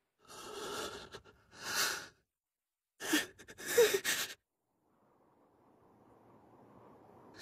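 A teenage boy's heavy, ragged breathing: four harsh breaths in about four seconds, the last ones catching with a strained voiced edge. After a short pause, a faint low noise swells from about five seconds in.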